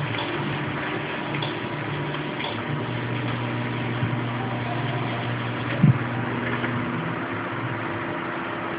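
Steady low hum and hiss of a running computer, with a couple of faint clicks and one short thump about six seconds in.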